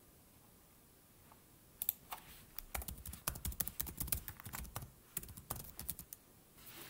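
Typing on a computer keyboard: a quick, irregular run of keystrokes that starts about two seconds in and goes on for about four seconds.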